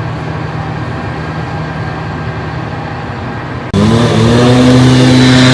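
Engine of clean-up machinery running steadily. About two-thirds of the way through, a much louder engine suddenly revs up and holds at high, steady revs.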